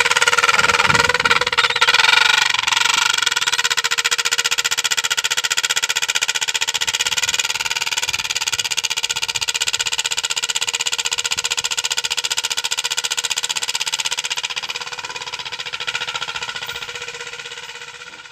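Motorcycle engine running through a silencer fitted with a homemade plastic sound attachment, giving a steady, rapid pulsing tone rich in overtones. It is loudest in the first few seconds and fades out near the end.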